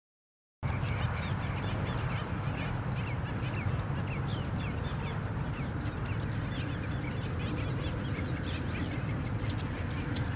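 Black skimmer colony calling: many short, overlapping yelping calls from many birds, over a steady low rumble. It cuts in abruptly about half a second in.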